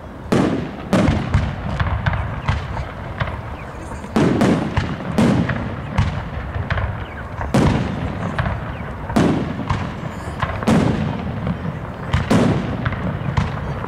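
Aerial fireworks shells bursting overhead in quick succession: loud bangs about every second or two, with smaller pops and crackle between them.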